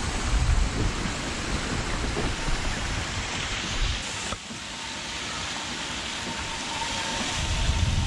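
Permobil F3 power wheelchair driving across deep, wet grass: a steady rushing noise with a low rumble that drops away about four seconds in, and a faint motor whine toward the end.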